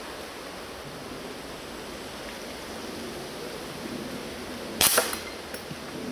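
Gamo CFX .177 underlever spring-piston air rifle firing, with the pellet striking a steel storm lighter and knocking it off its ledge: two sharp cracks in quick succession about five seconds in, then a faint click.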